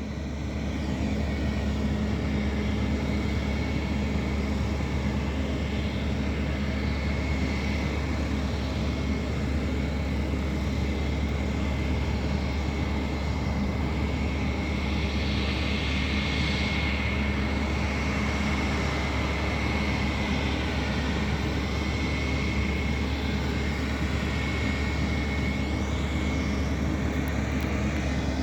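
Embraer E195-E2 jet airliner's engines running steadily on the ground, a constant high whine over a low rumble that neither rises nor falls.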